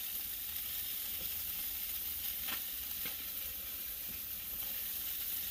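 Sausage, peppers and onions sizzling on a Blackstone gas griddle's flat-top: a steady frying hiss, with two faint clicks near the middle.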